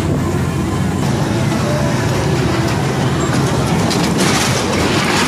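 Steady mechanical rumble of a kiddie car ride running, with a hiss that comes in about four seconds in.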